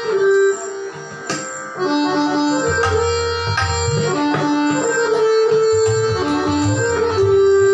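Harmonium playing a Hindustani classical melody in raag Saraswati, in held reed notes that step from pitch to pitch, accompanied by tabla strokes. Low, booming bass-drum (bayan) strokes join about three seconds in.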